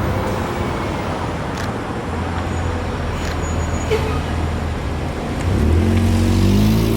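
Road traffic running past with a steady low engine hum. About five and a half seconds in, a vehicle engine rises in pitch and gets louder as it speeds up.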